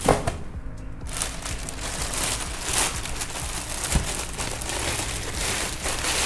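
Clear plastic bag crinkling and rustling as it is lifted and handled, with a sharp knock just after the start and another about four seconds in.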